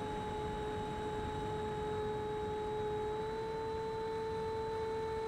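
Electric ducted fan of an 80mm Freewing Avanti jet, heard from on board in flight: a steady whine over wind rush, rising slightly in pitch about three seconds in as the throttle changes.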